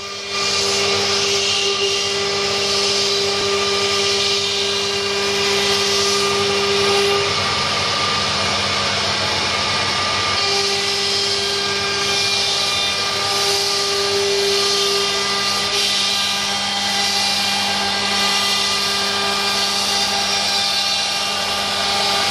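CNC wood router's electric spindle running while its bit cuts grooves into a wooden panel: a steady whine over the hiss of the cut. One of its tones drops away for a few seconds midway, then returns.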